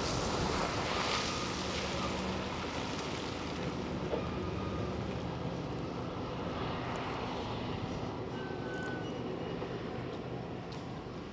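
Monighan 9W walking dragline working: a steady low machinery hum, with the rush of spoil pouring out of the bucket in the first few seconds, easing off as the bucket swings clear.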